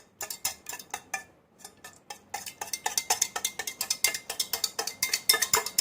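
Eggs being beaten in a bowl with a utensil, which clinks against the bowl. A few uneven strokes come first, then after about two seconds a steady run of quick strokes, about five or six a second.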